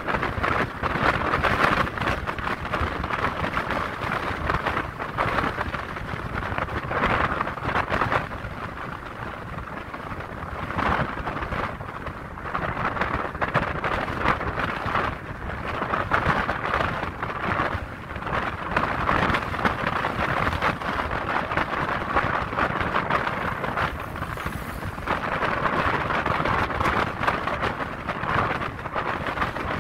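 Wind rushing past a moving car, swelling and easing every few seconds over steady road noise.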